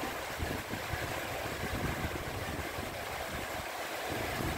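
Heavy rain pouring steadily in strong wind, with gusts buffeting the microphone in an uneven low rumble.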